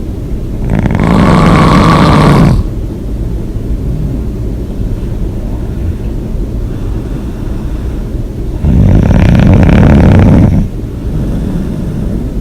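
A person snoring hard with the mouth open: two loud snores about eight seconds apart, each lasting about two seconds, with quieter breathing noise between them.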